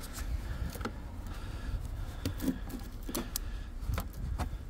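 Light metallic clicks and clinks, several in a row about a second apart, as a car's 12-volt battery terminal clamp is handled and fitted back onto its post, over a low steady rumble.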